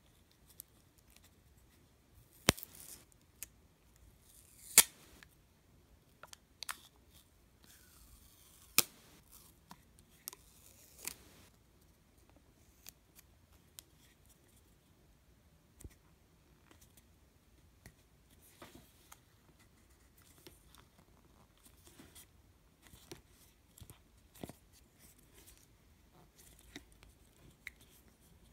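Hard plastic gashapon capsule being twisted and pried at by hand: sharp plastic clicks and snaps, the three loudest in the first ten seconds, with softer clicks, creaks and rubbing of fingers on the plastic in between.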